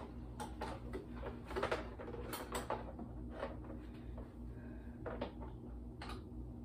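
Scattered clicks, light knocks and rustling as the plastic arms, hands and shiny costume of a Two Scoops animatronic clown prop are handled during assembly, over a steady low hum.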